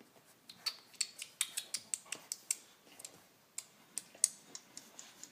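A quick, irregular run of sharp clicks and taps, then a few more spaced-out clicks, the loudest near the end.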